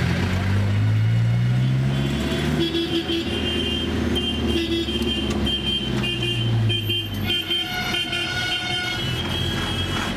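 Busy street traffic heard from inside a moving vehicle. An engine pulls away, rising in pitch over the first couple of seconds, then vehicle horns honk repeatedly in short and held toots.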